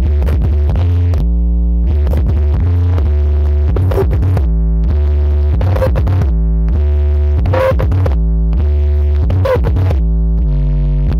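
Loud electronic dance music with synthesizer chords changing every second or so over a very heavy bass line and sharp beat hits, blasting from a "sound horeg" carnival sound system.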